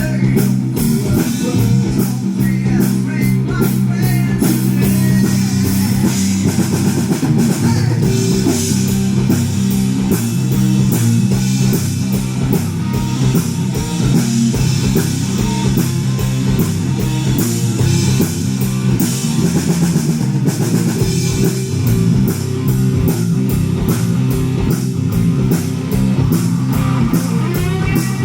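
Live rock band playing an instrumental passage: distorted electric guitars over a steady bass line and a drum kit keeping a driving beat.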